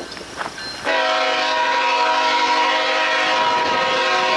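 Locomotive air horn starting suddenly about a second in and holding one steady chord of several notes.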